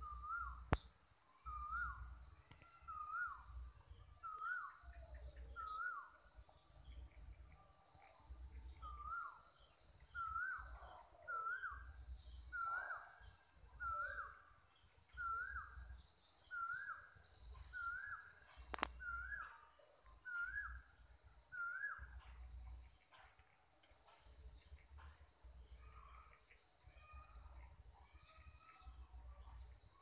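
Evening insect chorus of crickets, a steady high-pitched chirring. Over it a bird repeats a short call about once a second, pausing briefly and then stopping about two-thirds of the way through.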